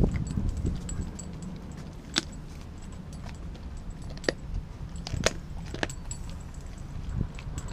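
A dog eating a raw meal, heard as a few sharp clicks and clinks spread over several seconds above a low steady rumble.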